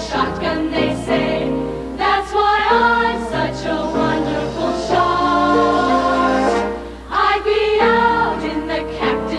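Show choir singing in chorus, with held chords.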